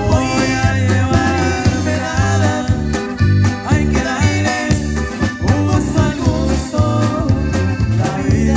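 Live band playing an upbeat Latin song: button accordion carrying the melody over electric guitar, electric bass and a drum kit, with a steady bass beat.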